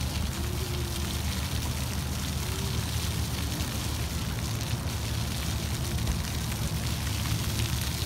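Jets of a small ground-level dancing fountain spraying up from floor nozzles and splashing onto wet paving: a steady hiss of falling water over a low rumble.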